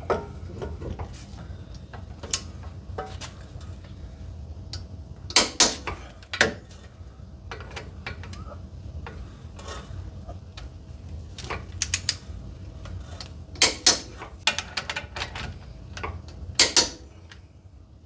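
Torque wrench tightening the wheel hub assembly bolts: light ratchet clicks, with a few much louder sharp clicks as the wrench breaks over at its 140 ft-lb setting.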